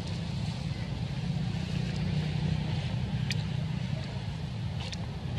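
Steady low rumble of a distant engine running, with a faint high hiss over it. Two short sharp clicks come about three and five seconds in.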